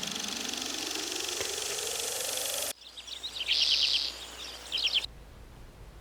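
Outdoor ambience edited in cuts: a steady high insect-like hiss with a rising hum beneath it, then, after an abrupt cut, a bird singing two quick chirping trills.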